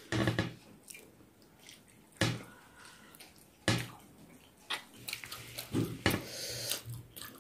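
Sounds of eating at a table: about five short knocks and clinks of plates, bowl and spoon, with quieter mouth sounds of chewing between.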